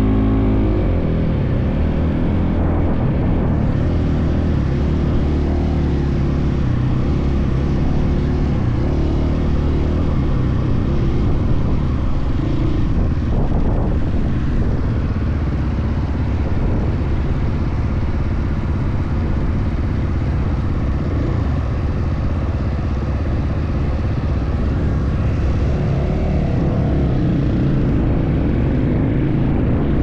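Husqvarna dirt bike engine running while riding over sand, its pitch rising and falling with the throttle, with wind rush on the microphone.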